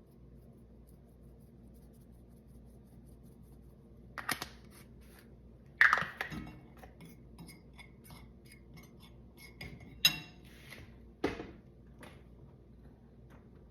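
Kitchen utensils clinking and knocking against a bowl: a few sharp clinks starting about four seconds in, the loudest about six seconds in, with lighter quick tapping between them.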